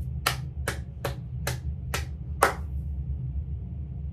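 Seven short, sharp taps, about two and a half a second, stopping about halfway through, over a steady low hum.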